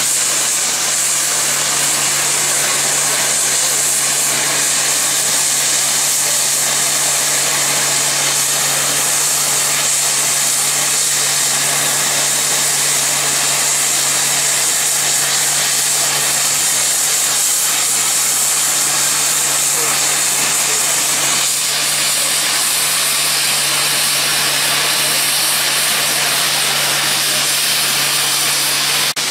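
Safety valves of the rebuilt Bulleid Light Pacific 4-6-2 steam locomotive 34046 Braunton blowing off, a loud steady hiss of venting steam that does not let up: the boiler is at full pressure while the engine stands.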